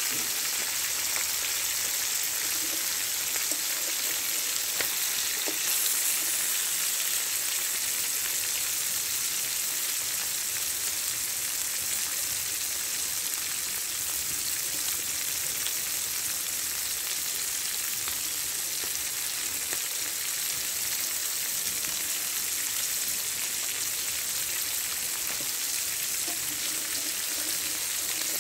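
Chicken pieces sizzling steadily as they fry in hot, bubbling oil in a steel wok.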